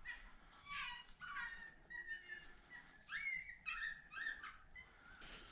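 Faint, repeated short yelping calls from a coyote, several quick yelps in a row with short gaps between them.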